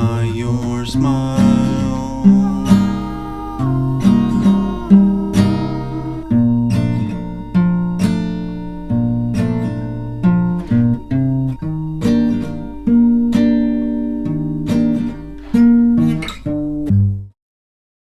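Acoustic guitar music, played as a run of separate plucked notes that ring on. It cuts off suddenly near the end.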